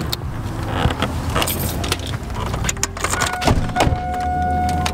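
Pickup truck cab as someone climbs in: clicks and knocks of the door and keys over a low steady rumble. About three seconds in, a steady high electronic tone comes on and holds.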